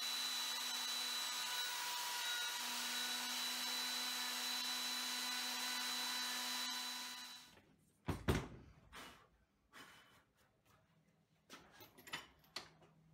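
Electric wood router running at full speed while cutting a round window into a small wooden block, a steady high whine with hiss. It switches off about seven and a half seconds in and stops quickly, followed by one loud knock and then lighter knocks and taps as the router and the wood are handled on the bench.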